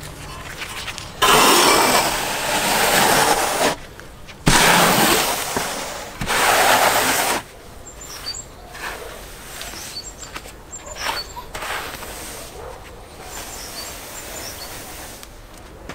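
Steel notched trowel scraping adhesive mortar across a mineral wool insulation board: three loud rasping strokes of two or three seconds each, then quieter, shorter scrapes. Birds chirp faintly in the second half.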